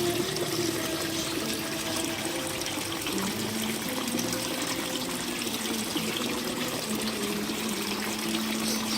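Running water trickling and splashing steadily, as from a pipe outflow into a fish pond.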